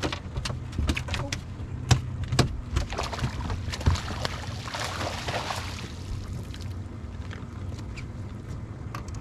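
A hooked bass splashing at the surface and thrashing in a landing net as it is scooped from the water, with a burst of splashing about five seconds in. Sharp knocks and thumps on the boat come in quick succession in the first few seconds.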